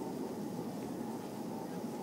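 Steady, echoing murmur of distant visitors' voices filling a vast marble church interior.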